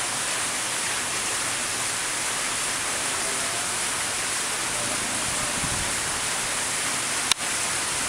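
Steady rush of water splashing into a koi pond, as from a waterfall or filter return churning the surface. A single sharp click cuts in about seven seconds in.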